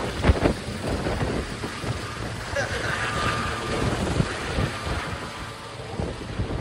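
Hospital helicopter lifting off and climbing away overhead: a rough rotor and engine din mixed with heavy wind noise on the microphone, easing off a little over the last few seconds.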